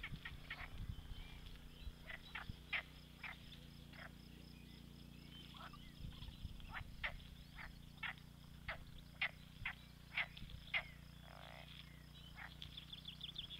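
A chorus of pond frogs calling: short, sharp calls repeated at irregular intervals, several overlapping at times.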